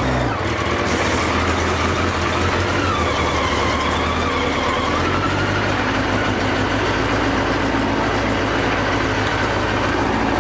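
Yamaha XJ900S Diversion's engine idling steadily, with a slight waver in pitch about three seconds in.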